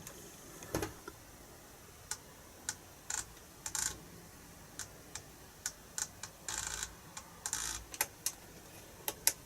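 Irregular clicks of buttons being pressed on a FrSky Taranis radio transmitter while mixer values are changed, with a few slightly longer noisy bursts among them.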